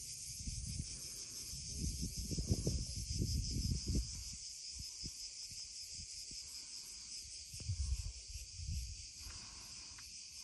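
Cicadas buzzing in a steady, high shrill drone. Under it, wind rumbles on the microphone in gusts, strongest about two to four seconds in and again near eight seconds.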